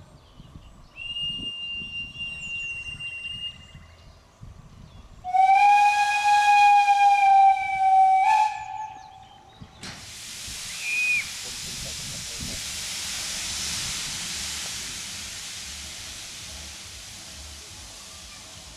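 Narrow-gauge steam locomotive whistles: a higher-pitched blast about a second in, then a louder, lower-pitched blast lasting about three seconds. About ten seconds in a steady hiss of escaping steam starts suddenly and slowly fades.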